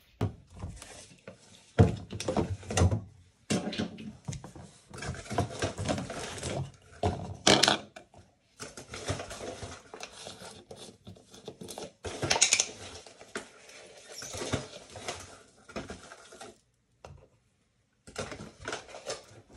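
Irregular clatter and rustling of plastic being handled: a pre-workout powder tub, a plastic scoop and a plastic shaker cup knocked and set down, with short pauses and a brief silence near the end.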